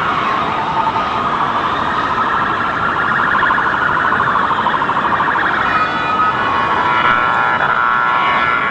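Emergency vehicle sirens sounding, several overlapping: a fast warbling siren through the first half, with more siren tones joining about six seconds in.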